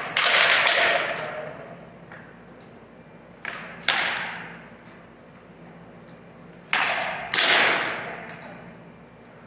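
Rattan sword blows landing hard in armoured sparring, three pairs of sharp cracks about three seconds apart, each fading slowly in the echo of a large hall.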